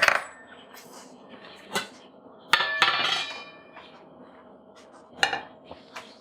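Rice steamer being opened: metal lid and pot clink and knock, with a ringing metallic clatter about two and a half seconds in and single knocks before and after.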